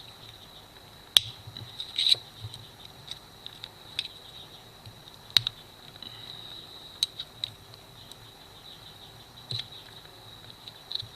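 Scattered sharp clicks and light scratching from a Victorinox Swiss Army knife, its scales removed, being handled and cleaned by hand. The loudest clicks come about a second in and about five seconds in, over a faint steady high whine.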